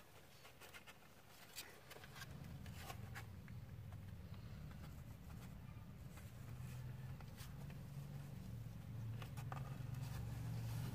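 Faint scratching and rustling of kittens' paws and claws on newspaper and cardboard, in scattered light clicks. A low rumble comes in about two seconds in and grows louder.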